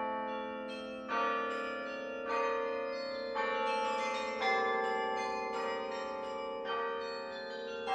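Carillon bells played from the baton keyboard in a slow passage: a new note or chord struck about once a second, each ringing on beneath the next.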